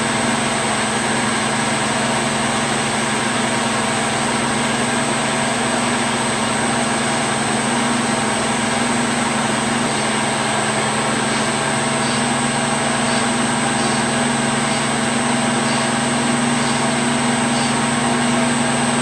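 Small metal lathe running steadily, its motor and spindle giving a constant hum, while a carbide tool turns a groove into the HP-85's tape-drive capstan to seat an O-ring. Faint light ticks come about once a second in the second half.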